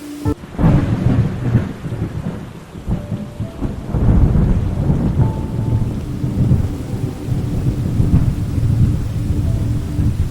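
A sudden thunderclap about a third of a second in rolls into a long, low rumble, which swells again about four seconds in, over steady rain.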